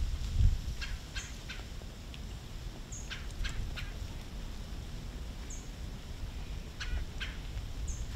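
Short, sharp bird calls in clusters of three or four quick notes, with a few faint high chirps in between, over a low wind rumble.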